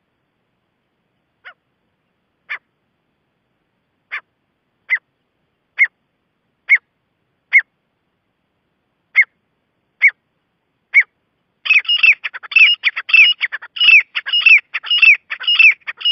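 Gray francolin calling: single short notes about a second apart, growing louder, then breaking into a fast run of rapidly repeated notes for the last few seconds.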